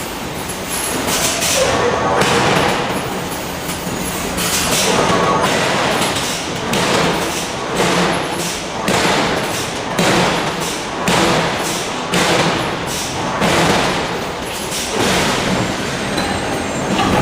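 Giant hydraulic forging hammer striking hot steel over and over, heavy thudding blows coming roughly once a second over steady machinery noise.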